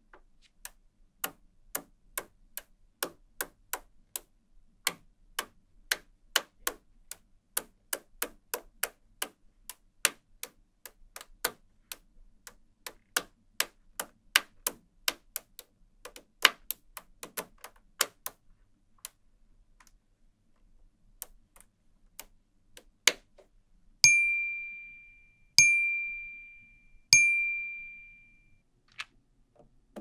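Small magnetic balls clicking sharply into place one at a time on a wall of magnetic balls, about two to three clicks a second, then stopping. Near the end come three loud ringing dings about a second and a half apart, each fading away.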